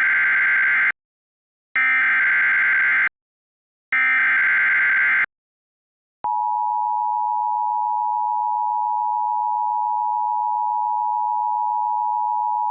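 Emergency Alert System broadcast: the SAME digital header, three screechy data-tone bursts about a second long each, the first already under way, then after a short pause the steady two-tone EAS attention signal starts about six seconds in and holds.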